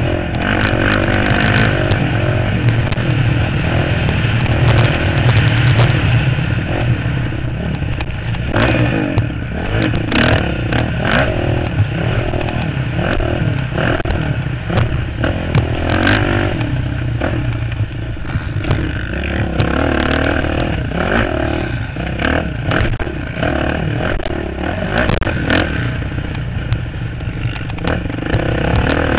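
Engine of a vehicle riding a dirt motocross track, recorded onboard: it revs up and down over the course, with frequent knocks and clatter from the bumps.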